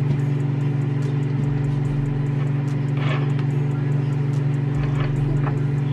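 Steady low electrical hum, made of a few constant tones. There are faint soft rustles as cotton candy is folded by hand, about three seconds in.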